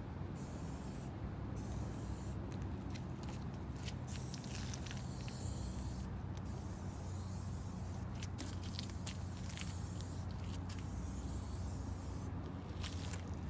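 Aerosol spray-paint can hissing in repeated bursts with short pauses between them, over a low steady hum.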